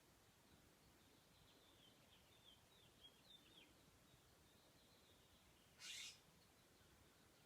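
Faint, quick bird chirps in the first half, and about six seconds in a short, harsh hissing burst that is the loudest thing heard.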